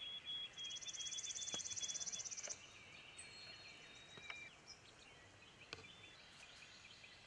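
Wild songbirds singing: a high trilling song for the first two and a half seconds with a faster, even higher trill over it, then scattered faint chirps and a few soft clicks.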